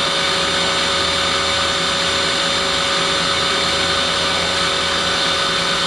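Mazak Quick Turn Nexus 200-II M CNC turning center running a live milling tool in its turret: a steady machine whir with several high, steady tones.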